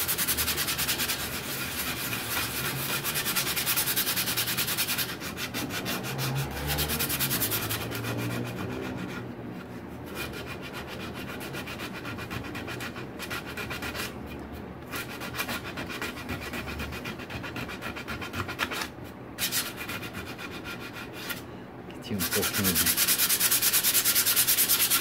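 A round sanding disc rubbing over a wooden block, taking old paint off the wood. The sanding runs steadily with a few brief pauses, is quieter through the middle and gets louder again near the end.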